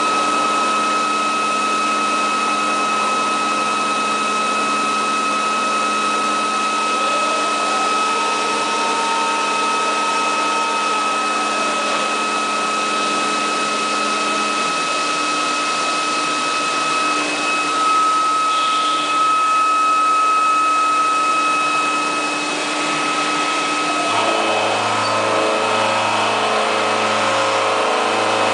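Milling machine running with a steady high-pitched whine and a hiss. A second tone rises, holds and drops back down about a third of the way in, and the lower hum changes to a pulsing drone near the end.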